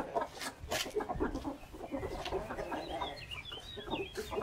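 Domestic chickens, hens and a rooster, clucking in a run of short calls, with brief sharp clicking sounds among them.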